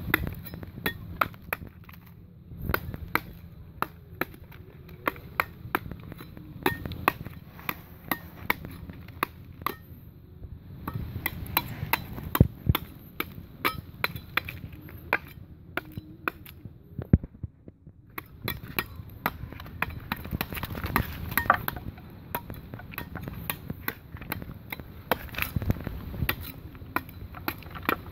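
Knife blade chipping and prying at a tree trunk's bark and wood: a run of sharp, irregular knocks and clicks, with a short break a little past the middle.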